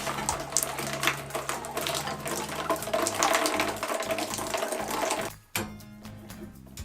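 Residual water pouring and splashing out of a freshly opened house water-main pipe as the fitting comes loose, with small metallic clicks, cutting off suddenly about five seconds in.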